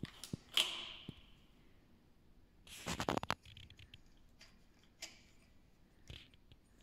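Hands handling the handlebar and compass bell of a 12-inch children's bicycle: a sharp tap with a short ring after it near the start, a quick run of clicks about three seconds in, then a few small clicks.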